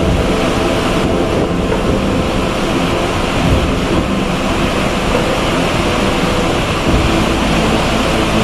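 Ship underway at sea: a steady low engine drone under the rushing noise of waves and wind.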